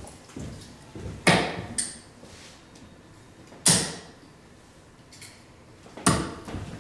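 Three darts striking a Winmau Blade 5 bristle dartboard, one sharp thud each, evenly spaced about two and a half seconds apart.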